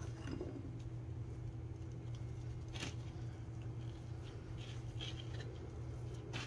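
Faint, brief handling sounds, soft rustles and a few light clicks, as hands press and fold a seasoned, stuffed raw chicken breast on a cutting board, over a steady low hum.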